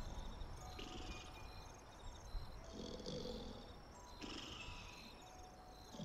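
Slow rhythmic purring like a resting cat, rising and falling in breaths about every one and a half to two seconds, with high repeated chirping over it.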